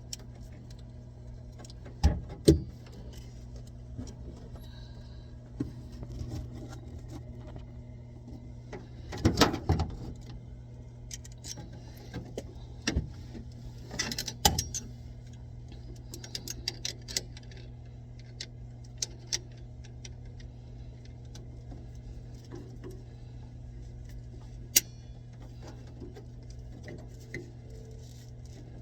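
Scattered metallic clinks and knocks of hand tools and pipe fittings being handled during plumbing work, a few sharper ones standing out, over a steady low hum.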